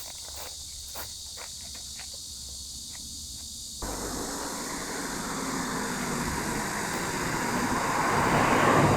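Cicadas buzzing steadily in a high drone. About four seconds in, road noise sets in and swells as a vehicle approaches, passing loudest near the end.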